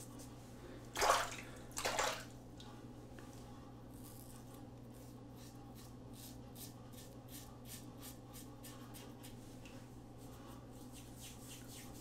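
Water splashing twice in quick succession, a brief razor rinse, then a single-edge safety razor scraping through lathered stubble in short strokes, about three a second.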